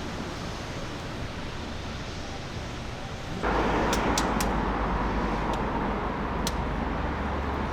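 Truck engine running steadily. About three and a half seconds in, the sound suddenly steps up louder with a steady hum and low rumble, and a few sharp clicks follow.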